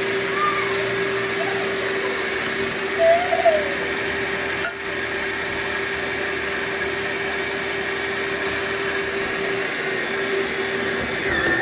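Yonanas 902 frozen-fruit soft-serve maker's electric motor running steadily with a constant hum, which stops near the end.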